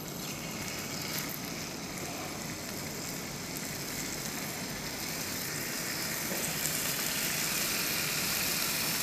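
Marinated pork skewers sizzling on an oiled non-stick griddle pan over medium heat: a steady frying hiss that grows a little louder in the second half as another skewer goes down.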